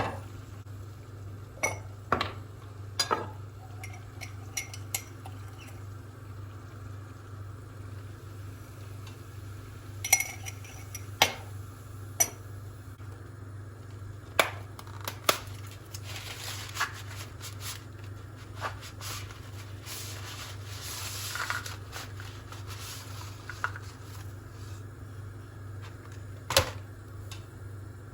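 Dishes and cutlery clinking and knocking in irregular, scattered strikes, over a steady low hum, with a few seconds of soft hiss midway.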